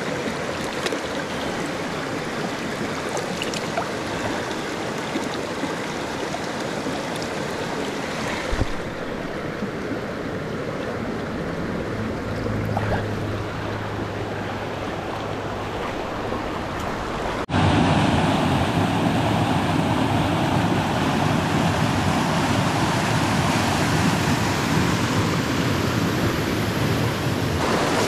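Creek water rushing over rocks, a steady rush. It changes abruptly about a third of the way in, and again about two-thirds in, where it becomes louder and fuller.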